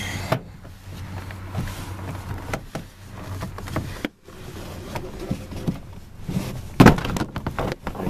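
Plastic interior trim panel of a Toyota Sienna sliding door being pulled off its retaining clips: irregular plastic creaks, rubbing and clicks, with a loud sharp knock about seven seconds in.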